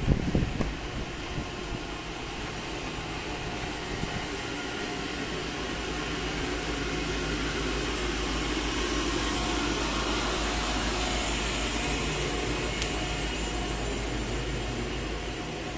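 Steady mechanical running noise with a constant low hum. It swells slowly to its loudest about ten seconds in and eases off near the end, with a few knocks in the first second.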